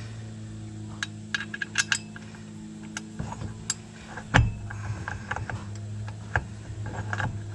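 Scattered metallic clinks and taps of tools and bolts as a Triumph 2500's tail shaft (propeller shaft) is fitted back onto the gearbox, with one heavier knock about halfway through, over a steady low hum.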